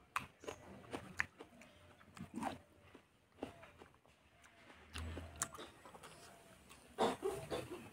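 Close-miked eating sounds: wet chewing and lip smacks as irregular clicks, loudest about seven seconds in.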